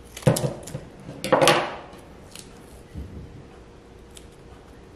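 Hands attaching a paper flag to a craft-stick pole on a tabletop. Two short, loud rustling noises come in the first second and a half, then a couple of faint taps.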